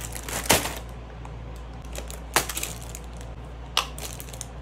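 Three short, sharp clicks, about one and a half to two seconds apart, the first the loudest, over a steady low hum.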